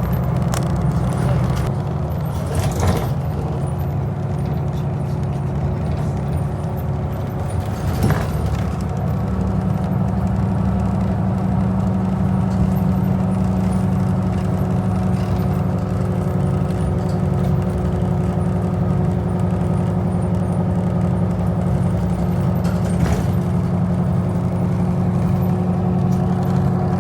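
Bus engine running steadily, heard from inside the cabin, with a few faint knocks and rattles about three, eight and twenty-three seconds in.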